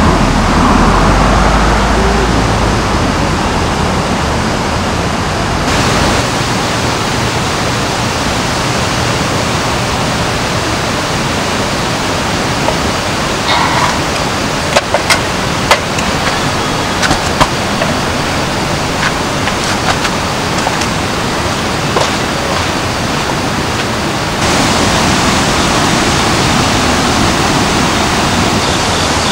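Steady hiss of rushing water, with a deep rumble under it for the first six seconds. It shifts abruptly twice, about six seconds in and near the end, and a few light clicks and knocks fall in the middle.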